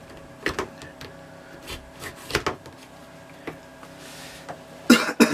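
Scattered clicks and knocks of a hand tool and clear vinyl hose being handled on a wooden board, with a louder pair of knocks near the end.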